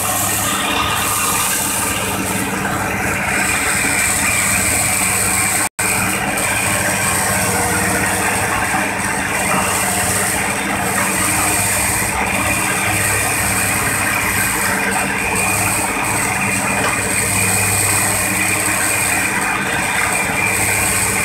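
Excavator's diesel engine running steadily. There is a momentary break in the sound about six seconds in.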